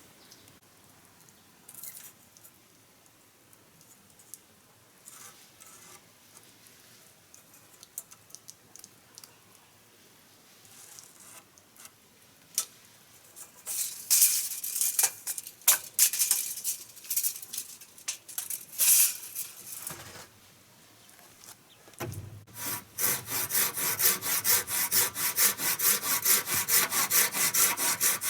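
Hand saw cutting wood with fast, even strokes, starting about two-thirds of the way in. Before that come scattered knocks and irregular scraping and rustling of wood being handled.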